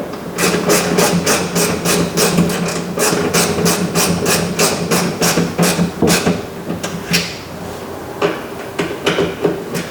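Ratchet and 8mm socket clicking as it tightens a door handle's mounting nuts, a quick even run of about four clicks a second for some six seconds, then a few scattered clicks.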